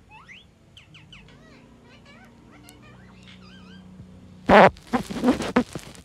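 Rose-ringed parakeet giving soft, warbling chirps and whistles that sweep up and down in pitch, then a loud harsh squawk about four and a half seconds in, followed by a run of short raspy calls.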